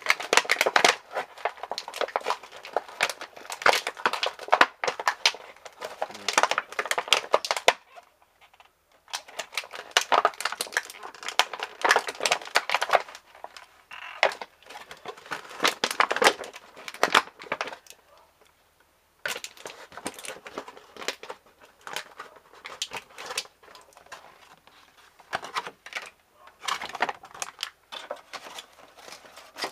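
Plastic packaging crinkling and crackling as it is handled, in long stretches broken by short pauses about eight, thirteen and eighteen seconds in.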